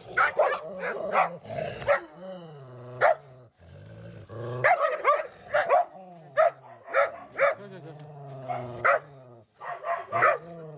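Dogs barking, with sharp barks coming in quick runs and long, low, drawn-out sounds between them.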